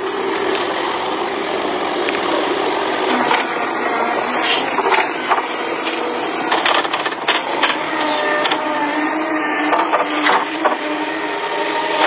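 Tracked hydraulic excavator running, with a steady engine and hydraulic drone and scattered knocks and scraping from the steel bucket and its teeth working dry soil.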